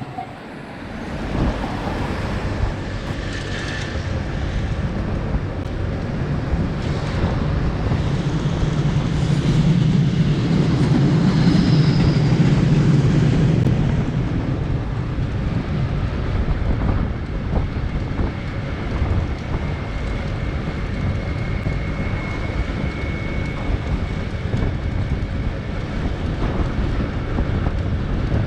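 Train running past on the line: a low rumble that swells to its loudest about ten to fourteen seconds in, then settles back to a steady run. Wind buffets the microphone throughout.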